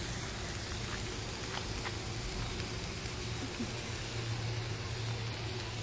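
Beef slices sizzling steadily on an electric tabletop grill, under a low steady hum.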